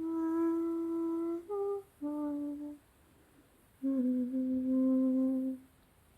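A woman humming a slow tune in four long, held notes, with a pause of about a second before the last and longest one.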